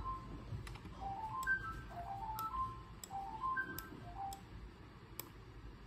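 Faint background music: a light melody of short high notes climbing in a little figure that repeats about every second, with a few faint clicks.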